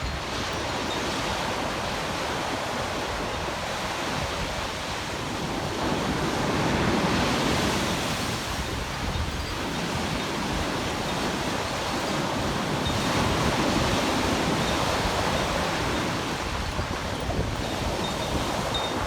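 Ocean surf washing onto the beach, swelling louder twice as waves come in, with wind rumbling on the microphone.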